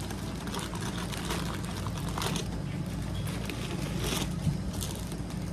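Plastic packaging rustling and crinkling as items are handled, in scattered short bursts over a steady low background hum.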